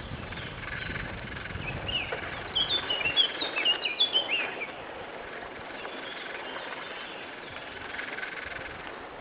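A songbird sings one quick phrase of short, clear, downward-curving notes, lasting about two seconds and starting a couple of seconds in. Under it, in the first few seconds, come the low thumps of footsteps and camera handling while walking.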